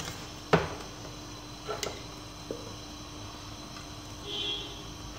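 A cooking utensil knocks once sharply against a metal frying pan about half a second in, then taps faintly a couple of times as desi ghee is scooped into the empty pan. A low steady hum runs underneath, and a brief faint squeak comes near the end.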